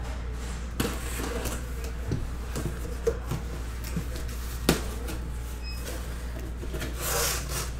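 Cardboard box being handled and opened: rubbing and scraping of cardboard with a few light knocks, and a longer scrape near the end, over a steady low hum.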